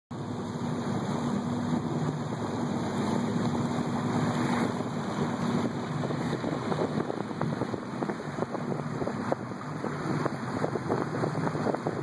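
A boat motor hums steadily as the boat moves on the river, with wind buffeting the microphone and water splashing.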